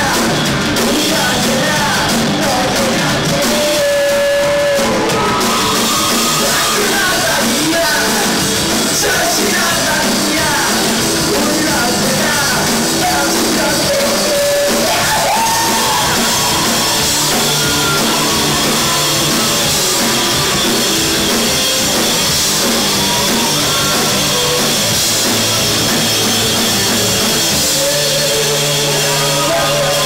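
Live rock band playing loudly: a man singing lead over electric guitars and a drum kit with cymbals.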